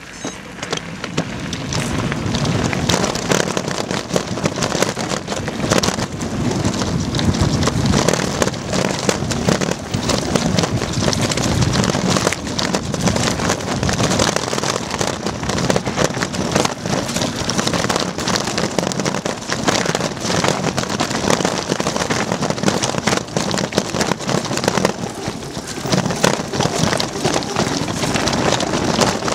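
Mountain bike riding fast down a rough dirt and stone trail: tyres crunching and pattering over loose stones, with a constant rattle of jolts through the bike, getting louder over the first couple of seconds as it picks up speed.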